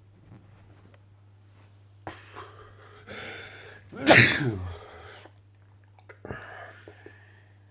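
A person's loud sneeze about four seconds in, preceded by a drawn-in breath that builds up over a couple of seconds. A smaller breath follows the sneeze.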